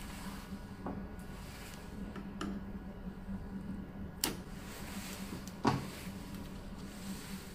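Small plastic clicks and knocks as ink tubes are pushed onto the ink sacks on a UV printer's printhead carriage, two sharper clicks past the middle, over a steady low hum.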